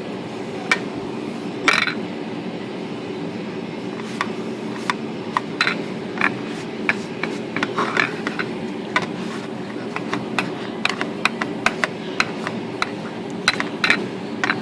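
Scattered light clicks and taps from cleaning a typewriter lid, over a steady low hum. The clicks come irregularly and grow more frequent in the second half.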